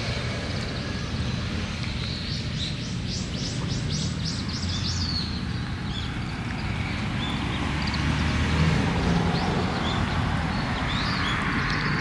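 Small songbirds chirping, with a quick run of about ten short downward-sweeping notes a few seconds in and scattered single chirps after it, over a steady low outdoor rumble that swells for a couple of seconds past the middle.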